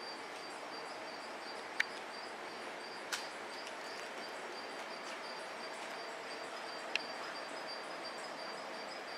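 Steady background hiss with a faint, high, rapidly pulsing tone, broken by three sharp clicks: one about two seconds in, one about three seconds in and one near seven seconds.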